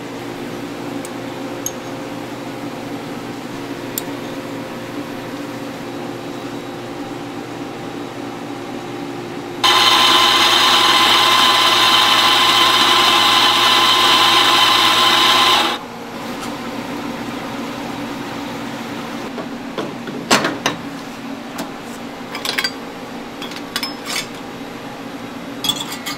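Electric espresso grinder running for about six seconds as it grinds coffee into a portafilter, over a steady background hum. Near the end come a handful of sharp metal clicks and knocks as the portafilter is handled and locked into the espresso machine.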